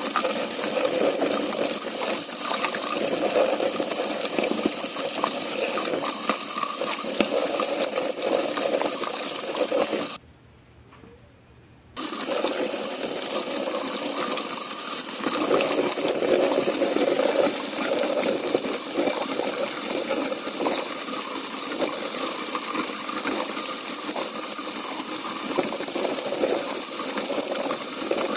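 Tap water running steadily and splashing over the plastic cyclone assembly of a Dyson V6 vacuum held in the stream, draining into a sink. The sound drops out for about two seconds roughly ten seconds in, then resumes.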